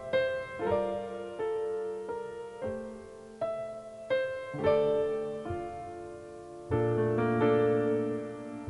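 Background piano music, with single notes and chords struck about once a second and left to ring.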